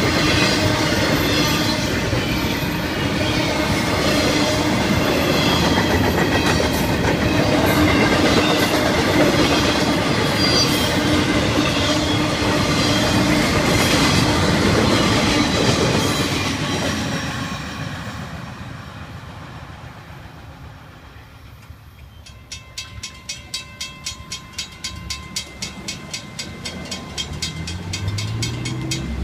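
Double-stack intermodal freight cars of a Florida East Coast train rolling past a grade crossing: steady wheel rumble and clatter with a tonal whine, fading away after about 17 seconds as the last car clears. From about 22 seconds in, the crossing's warning bell rings, about two strokes a second.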